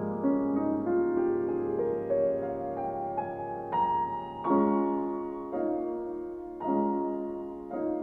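Slow, gentle background piano music: a run of single notes climbing step by step, then held chords struck about once a second, each left to ring and fade.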